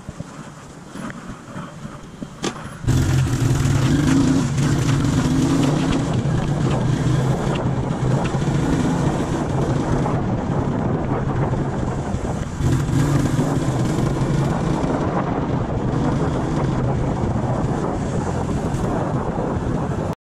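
Faint rustling and clicks of riding gloves being pulled on, then, about three seconds in, a sudden change to a motorcycle engine running under way, its note shifting partway through, with wind on the microphone.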